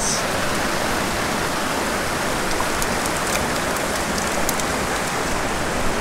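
Small mountain creek running over rocks close by: a steady rush of water, with a few faint ticks in the middle.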